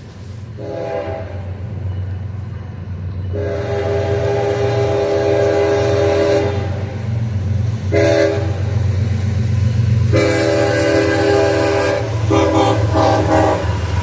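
CSX diesel locomotive's multi-chime air horn sounding a series of long and short chords, the warning for a grade crossing, over the steady rumble of the approaching train.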